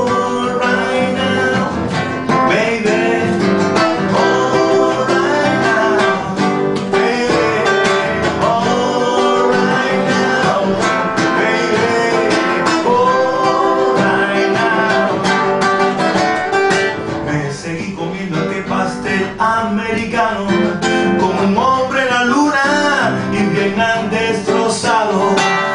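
Acoustic guitar strummed steadily under a man's singing voice carrying the melody.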